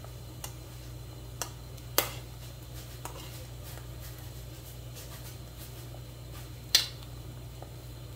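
Ladle knocking against the side of an aluminium pot while chunks of squash are stirred: two sharp clinks, about two seconds in and near the end, with a few lighter taps between, over a steady low hum.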